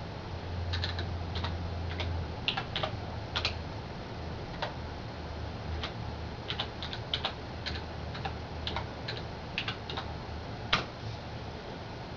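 Computer keyboard keystrokes typed at an uneven pace while entering a login, with one sharper keystroke near the end.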